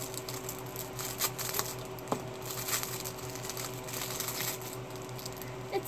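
Small plastic wrapper crinkling and tearing as it is opened by hand, a run of quick irregular crackles.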